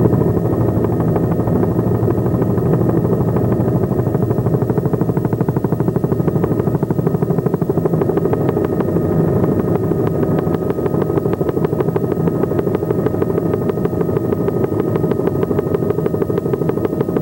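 Helicopter rotor and engine heard from on board: a loud, steady running noise with a fast, even beat from the blades. It cuts in suddenly at the start.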